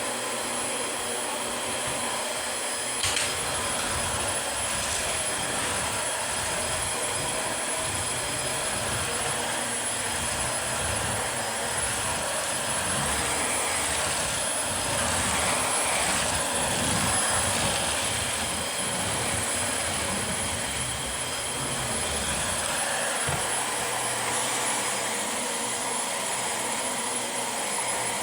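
Dyson DC25 Animal upright vacuum cleaner running, a steady motor whine with a high constant tone, with a low rumble that comes and goes as it works over the floor. There is a sharp click about three seconds in.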